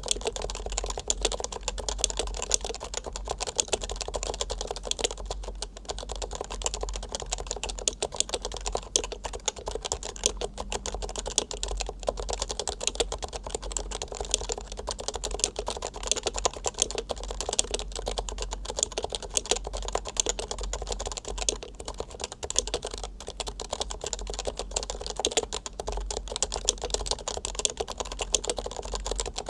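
Fast, continuous typing on a Leopold FC660C keyboard with Topre electrostatic capacitive switches, all 45 g: a dense, unbroken stream of soft key clicks.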